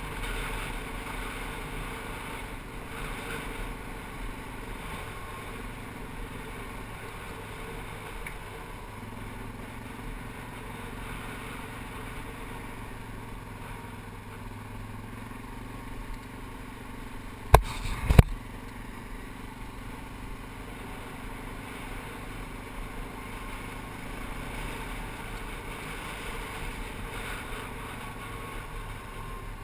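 ATV engine running steadily under way on a gravel road, with a rough haze of tyre and wind noise. A little past halfway come two sharp, loud knocks about half a second apart.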